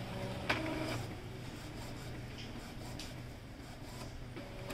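Epson EcoTank printer starting up after being switched on: a sharp click about half a second in, then a low steady hum with faint ticks from its mechanism.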